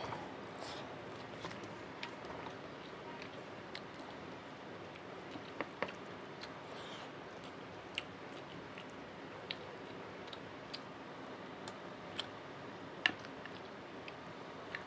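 Close-miked eating sounds of a person eating rice and chicken curry by hand: wet chewing with scattered mouth clicks and smacks, the sharpest one near the end, over a steady faint hiss.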